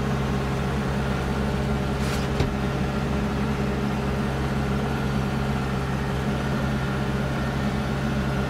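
Kubota Grand L4760 tractor's diesel engine running steadily under load as it drives a front-mounted snowblower through snow crusted with ice, heard from inside the closed cab. A short hiss ending in a click comes about two seconds in.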